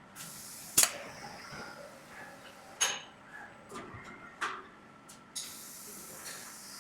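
Three sharp clanks spread over a few seconds, over a hiss that comes and goes and a faint steady whine.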